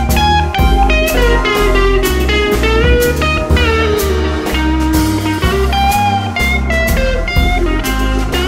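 Background music with a steady drum and bass beat and a lead melody that slides between notes.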